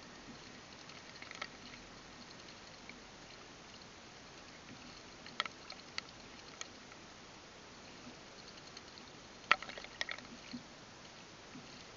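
Common blackbird bathing in a shallow bird bath, splashing water with its wings in a few short flurries. The biggest flurry comes near the end, over a faint steady hiss.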